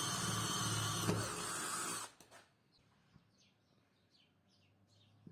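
Electric drill running steadily, drilling a hole in the body of a battery cable clamp, then cutting off suddenly about two seconds in. Faint bird chirps follow in the quiet.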